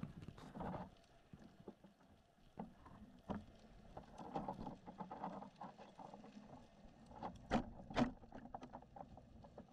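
Faint underwater sound picked up by a camera in its waterproof housing at depth, with scattered light clicks and two louder knocks about two seconds before the end as the camera swings on its line.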